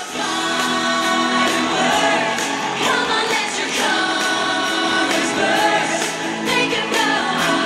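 Upbeat pop music with a group of voices singing over a steady beat.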